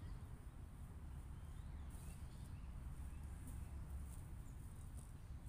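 Faint outdoor ambience: a steady low rumble with a few scattered faint high ticks.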